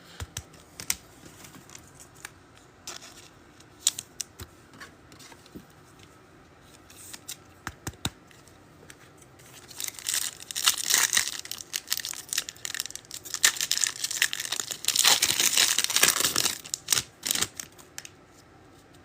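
Scattered light clicks for several seconds, then a foil trading-card pack wrapper torn open and crinkled for several seconds.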